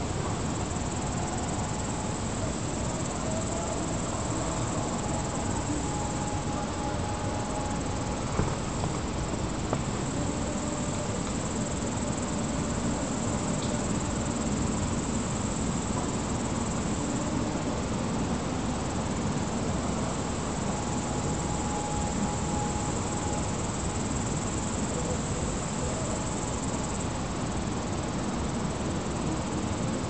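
Steady high-pitched chirring of insects over a constant low rumble, with two brief clicks about eight and ten seconds in.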